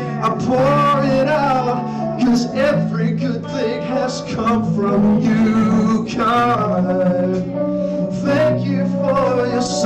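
Live worship music: singers at microphones over keyboard-led band accompaniment with held low notes.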